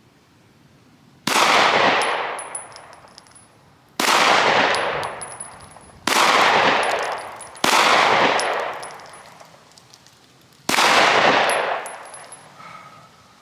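Five 9mm pistol shots from a Glock 19X fired slow and deliberately at a target, each a sharp report with a long echoing tail, roughly two to three seconds apart, with the fourth following the third quickly.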